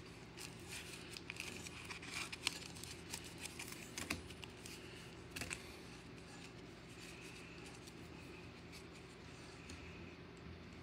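Trading card packs being handled: wrappers crinkling and cards rustling and clicking in the hands, in a run of short bursts through the first half, then quieter.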